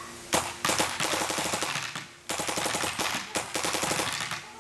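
Proto SLG paintball marker firing in semi-automatic with its stock trigger: fast strings of shots as the trigger is pulled rapidly, in three runs of about a second each with short pauses between.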